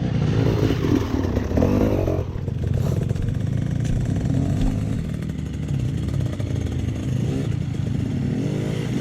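Enduro motorcycle engine running at low revs, its note rising and falling during the first two seconds.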